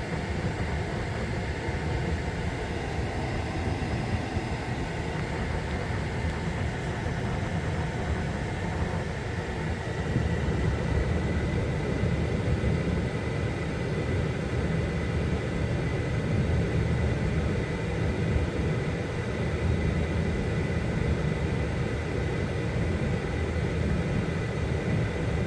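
Steady mechanical running noise from a 2021 Ford F-150 PowerBoost hybrid sitting with the ignition off after a Stop Safely Now no-start fault, with a faint high steady whine joining about ten seconds in and the noise growing slightly louder.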